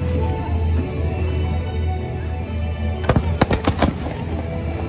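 Fireworks going off: a quick run of about five sharp bangs some three seconds in, over steady music.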